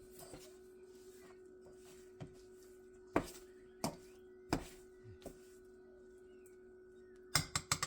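Scattered knocks and clicks of kitchen utensils against dishes and pans, about six spread out, then a quick run of clicks near the end, over a steady low hum.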